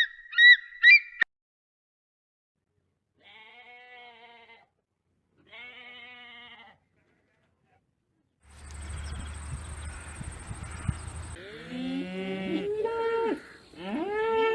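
Livestock bleating: two short wavering bleats, then several animals bleating over one another, loudest near the end. A few quick high chirps come first, and a stretch of hiss with a thin high whine runs in the middle.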